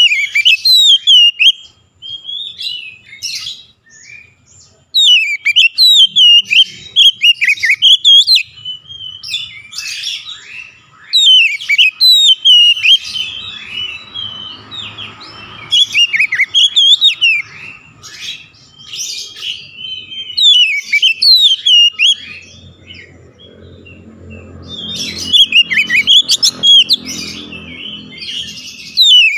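Oriental magpie-robin singing loudly: bursts of varied, sliding whistled notes, repeated phrase after phrase with short pauses between them.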